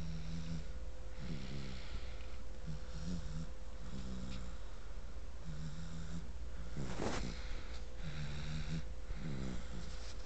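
A baby snoring in a steady rhythm, about eight short snores roughly a second and a half apart. One louder, sharper noise comes about seven seconds in, over a faint steady hum.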